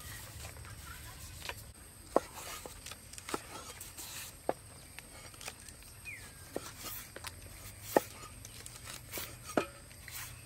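Cleaver cutting limes into wedges on a thick wooden chopping board: single sharp knocks of the blade on the wood, spaced irregularly a second or more apart.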